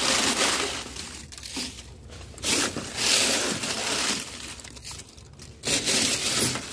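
Dry leaves rustling and crunching as they are scooped and handled, in several bursts with short pauses between.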